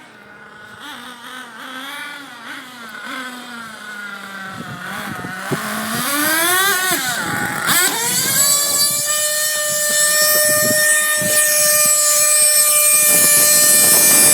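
Nitro RC car's small engine revving up and down, then held at a steady high-pitched full-throttle whine from about eight seconds in, growing steadily louder.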